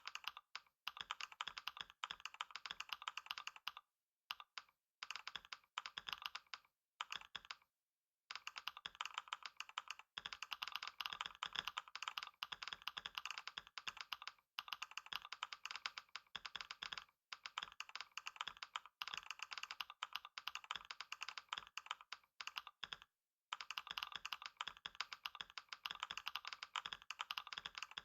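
Fast, continuous typing on a computer keyboard: a dense stream of key clicks, broken by a few short pauses, around four, eight and twenty-three seconds in.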